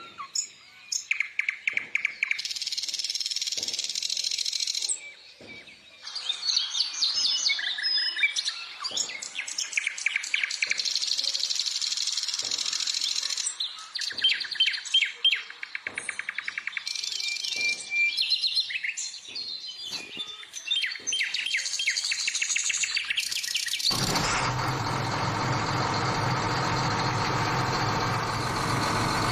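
Birds chirping and singing in a steady run of varied calls and trills. About 24 seconds in, a steady engine or motor sound starts abruptly, with a low hum.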